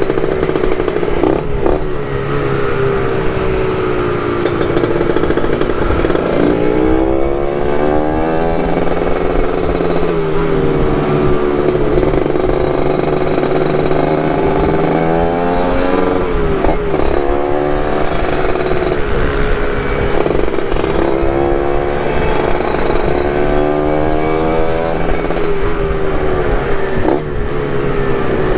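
Two-stroke motorcycle engine running on the road, its note swelling and dropping about three times as the rider works the throttle and gears, over a steady rush of noise.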